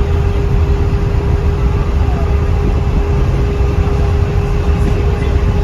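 Cabin of a 2021 Blue Bird Vision school bus under way: a steady, loud low rumble of engine and road, with a constant hum held at one pitch above it.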